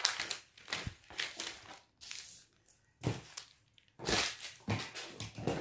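Stiff brown pattern paper rustling and crackling as it is unfolded and smoothed flat on a table by hand, in several short bursts.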